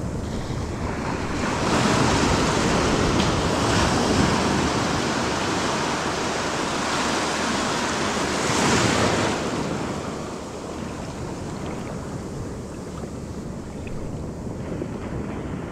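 Surf washing onto a sandy beach, with wind buffeting the microphone. The wash swells a few seconds in and again about eight to nine seconds in, then eases off.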